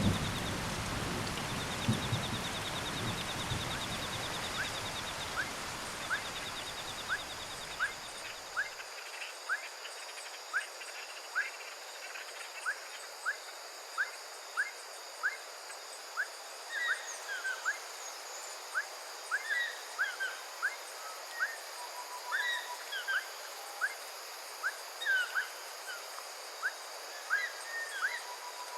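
Cloud-forest soundscape. At first the tail of a rain shower and distant thunder rumbles under a high pulsing insect trill, and these cut out about nine seconds in. From there an animal repeats short rising whistled notes about once every 0.7 seconds, joined after the middle by other overlapping chirps and brief trills, over a steady high insect hiss.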